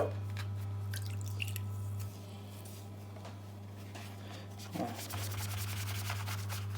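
Damp melamine foam sponge (Flash Magic Eraser) scrubbed hard against a silicone Apple Watch Sport Band, rubbing away dye-transfer stains. The strokes are faint at first, then come quick and close together from about five seconds in, over a steady low hum.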